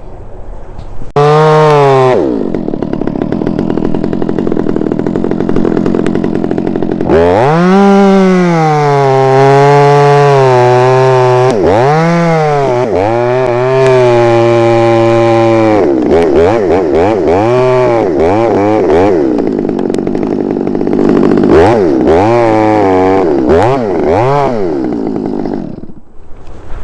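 Chainsaw revving and cutting into an ash tree, its pitch repeatedly climbing and dropping as the chain bites and frees. It starts about a second in and cuts out near the end.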